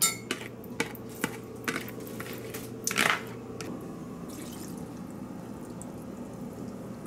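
A spoon taps macaroni out of a plastic colander into a steel pot, a run of sharp knocks about twice a second with a louder one about three seconds in. After that comes a soft, steady trickle of milk being poured from a glass measuring cup into the pot.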